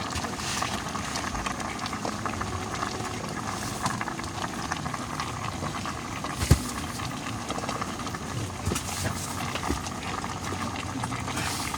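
Pot of paksiw bangus (milkfish in vinegar) boiling, with a steady bubbling hiss and fine crackle. One sharp knock sounds about six and a half seconds in.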